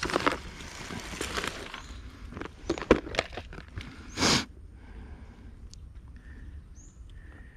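Plastic tackle box being unlatched and opened: a run of sharp clicks and scrapes from the latch and handled plastic, then one short loud rush of plastic about four seconds in. After that it goes quiet but for a few faint high chirps.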